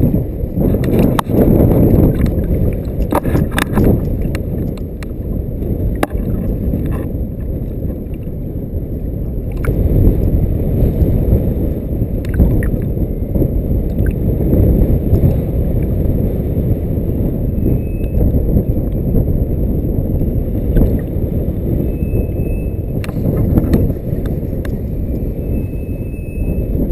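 Strong wind buffeting the camera microphone as a dense low rumble, with choppy lake water lapping and gurgling against a float tube. A few light knocks stand out within the first few seconds.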